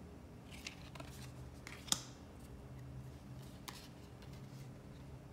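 Small, playing-card-stock tarot cards being handled: a few light clicks and taps as a card is laid on the pile on a wooden table and the next one is drawn, the sharpest about two seconds in. A faint steady low hum lies underneath.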